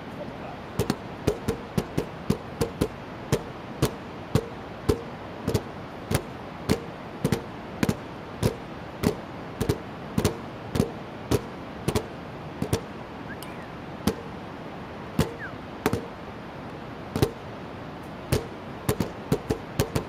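Nunchaku drumming on plastic buckets: sharp hollow knocks in an irregular rhythm, roughly one to two a second, with a pause of a couple of seconds about three-quarters of the way through. Underneath runs a steady rushing noise.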